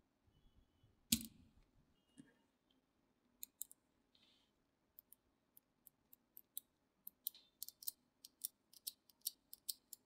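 Small magnetic balls clicking and snapping together as fingers pull them apart and press them into clusters. One louder snap comes about a second in, then a run of quick, irregular clicks grows denser toward the end.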